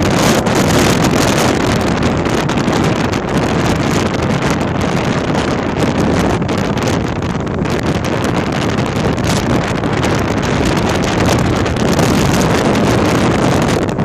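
Strong sea wind buffeting the phone's microphone: a loud, continuous rushing rumble that swells and eases a little.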